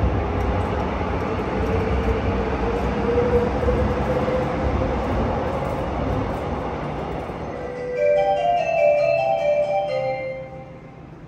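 Korail electric commuter train pulling out of an underground station behind platform screen doors: a rumble with a motor whine that rises slightly in pitch, fading away over several seconds. About eight seconds in, a short multi-note station chime plays, the signal that precedes the next train's arrival announcement.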